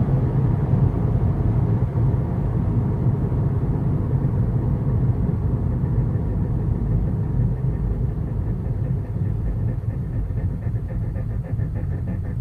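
Cabin noise of a 2015 Subaru WRX slowing under braking: a steady low road and drivetrain rumble. In the last few seconds a rhythmic pulsing noise sets in at about four pulses a second. This is the recurring noise when braking at low speed that the dealership blamed on rocks, rust, dirt and aftermarket wheels, still not cured.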